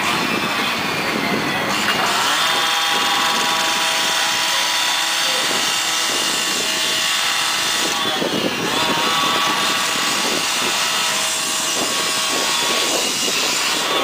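Carbide-tipped rescue saw running at high revs and cutting into a metal fence, a steady high whine. The pitch sags briefly about eight seconds in and again near the end as the blade loads up in the metal.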